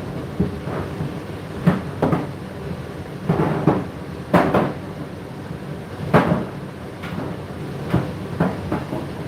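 Laundry tumbling in a rotating domestic appliance drum: soft thuds at an uneven pace, about one or two a second, over the machine's steady running rumble.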